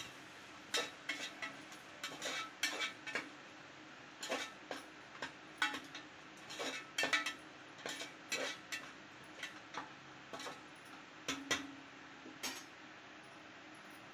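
Metal slotted spoon scraping and clinking against the inside of an aluminium pressure cooker while stirring a thick masala, in irregular strokes that stop shortly before the end.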